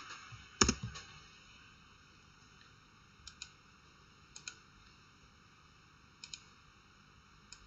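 Clicks at a computer, mainly a mouse button: one sharp click with a thump about half a second in, then four paired clicks, each like a button pressed and released, a second or more apart.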